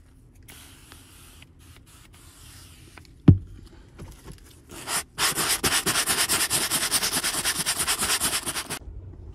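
An aerosol foam upholstery cleaner hisses faintly onto a cloth car seat, and there is a single sharp knock about three seconds in. Then a stiff hand brush scrubs the fabric seat in quick, even back-and-forth strokes, the loudest part, stopping shortly before the end.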